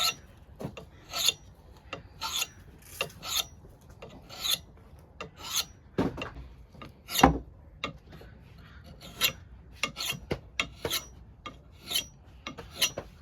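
A dull hatchet blade being scraped against a kitchen knife sharpener, steel on steel, in a run of short irregular strokes, one or two a second. One stroke about seven seconds in is louder, with a knock.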